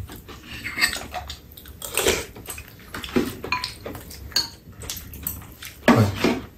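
Metal spoons and chopsticks clinking and scraping against ceramic bowls and a plate during a meal, in irregular light taps.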